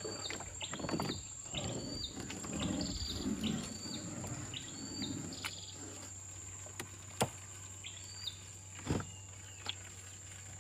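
A bird calling a short rising whistled note over and over, roughly every two-thirds of a second, falling silent about halfway through with one more call near the end, over a steady high insect drone. Two sharp knocks come in the second half.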